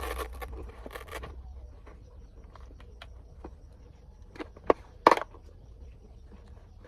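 Scattered light clicks and knocks of hard objects being handled, with two sharp knocks in quick succession about five seconds in.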